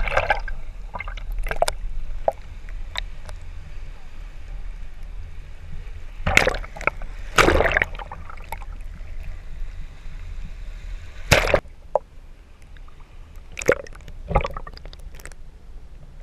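Shallow surf sloshing and gurgling around a half-submerged camera at the waterline, over a steady low rumble, with several loud, brief splashes as small waves wash over it.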